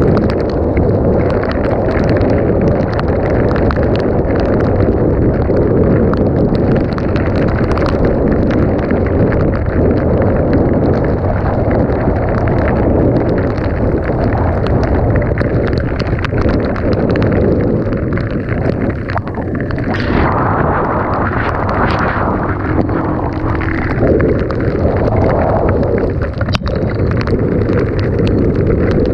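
Dirt bike being ridden: a loud, steady rumble of heavy wind buffeting on the microphone over the running engine, with scattered small knocks.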